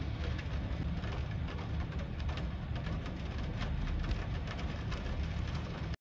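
Rain pattering: many small, irregular drop ticks over a steady low rumble.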